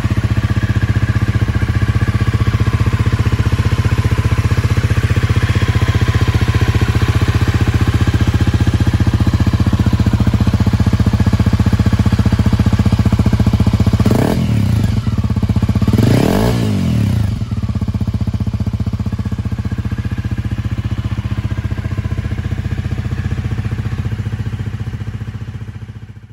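A 2017 Honda CRF250 Rally's single-cylinder engine idling steadily through a Yoshimura aftermarket muffler, blipped up and back down twice about fourteen and sixteen seconds in. The sound fades away near the end.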